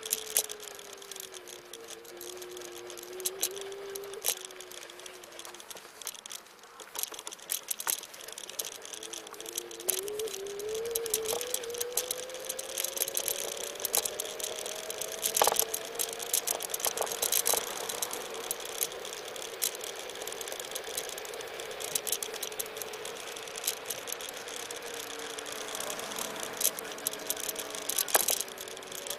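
Xplorer Ambassador electric scooter under way: its electric motor whines, the pitch sinking early on and then climbing steadily from about a third of the way in. Rattling and clicks from the scooter's frame and handlebars run throughout.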